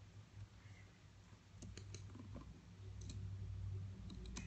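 Faint computer mouse clicks, a few quick ones in three small groups, over a low hum that swells about three seconds in.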